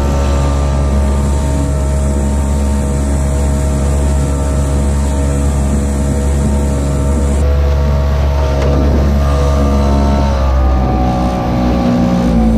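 Dinghy outboard motor running at steady cruising speed while the boat is under way. Its note dips slightly about ten seconds in.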